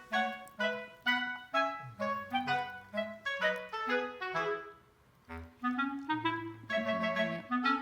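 Light, bouncy background music with a woodwind melody, clarinet-like, over a simple bass line.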